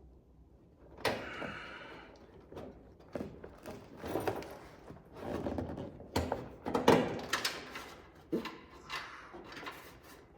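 Hand work on metal car parts and tools: irregular clanks, knocks and scraping, with a sharp metallic clank that rings briefly about a second in.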